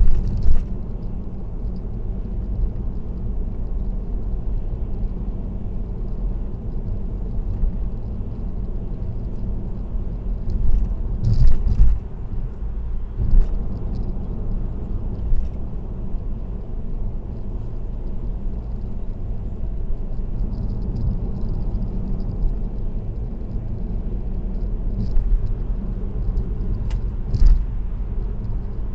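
Steady low road and tyre rumble of a car cruising on an expressway, with a handful of brief knocks, the strongest about eleven seconds in and another near the end.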